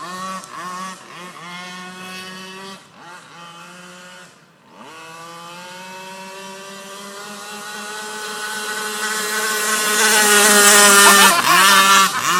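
Small petrol engine of an RC gas boat running, dropping away briefly about four and a half seconds in, then rising steadily in pitch and growing louder through the second half.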